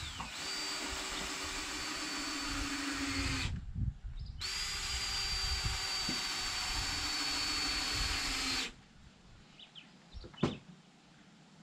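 Power drill driving screws into wooden stair treads in two long runs, its motor whine steady and then cutting off, with a short pause between them. After it stops there is one brief click.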